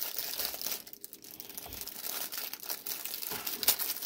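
Clear plastic bag crinkling and crackling as hands work a computer mouse out of it. The rustling dips briefly about a second in, and the sharpest crackle comes near the end.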